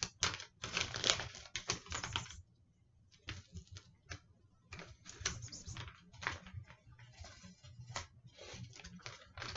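Irregular rustling and crackling with light clicks and taps, the sound of something small being handled by hand; there is a brief lull about two and a half seconds in.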